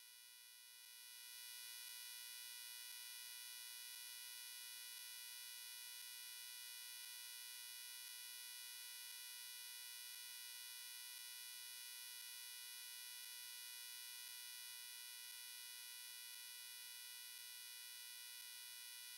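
Near silence, with only a faint, steady electronic buzz made of several high tones that never change.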